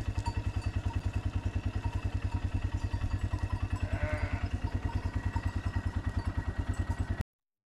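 ATV engine idling with a steady, even low putter of about eight beats a second, which cuts off abruptly near the end.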